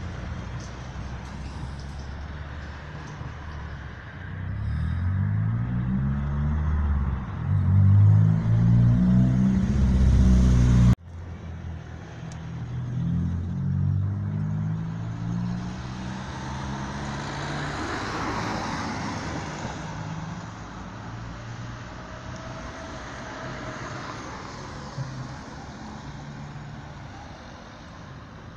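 Road traffic: car engines passing close, their pitch rising and falling, loudest from about four seconds in until the sound cuts off abruptly near eleven seconds. After that, more cars pass and the sound gradually fades.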